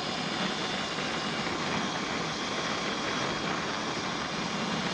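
Sur-Ron X electric dirt bike cruising on pavement: a steady rush of wind and tyre and drivetrain noise, with no engine note.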